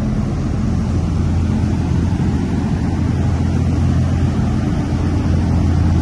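Rooftop HVAC equipment of a chiller plant running: a loud, steady low machine hum.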